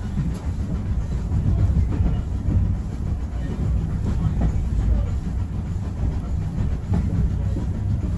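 Railway carriage running along the track, heard from on board: a steady low rumble with occasional clicks of the wheels over rail joints.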